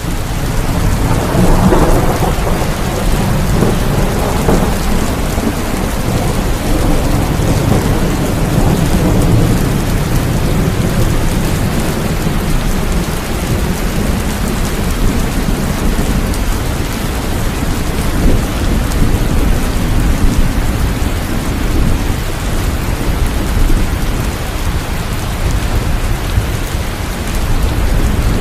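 Steady heavy rain falling, with a long low rumble of thunder that swells about a second in and slowly fades away.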